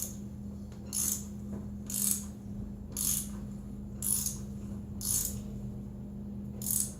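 Helicoil thread tap being turned by hand into a hole, cutting new threads, with a short click about once a second, seven in all, over a low steady hum. The tap is nearly at the bottom of the hole.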